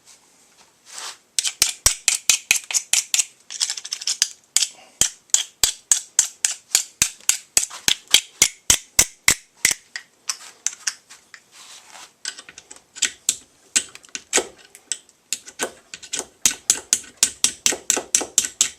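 A small screwdriver clicking and tapping in quick, even runs, about four or five a second with short pauses, as it stirs two-part five-minute epoxy.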